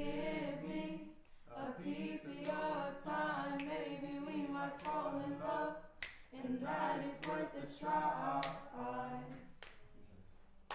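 Young voices singing a cappella, with slow held notes that waver, no instruments. The singing stops briefly about a second and a half in and again about six seconds in, and fades away near the end.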